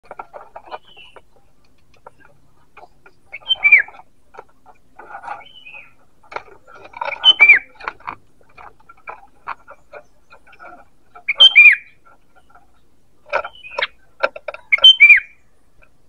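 Sooty-headed bulbul calling: loose chattering notes broken every three to four seconds by a loud phrase, four times, each with a falling whistled note.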